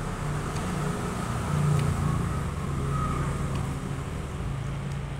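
A steady low rumble and hum, with a few faint crisp clicks from chewing corn on the cob.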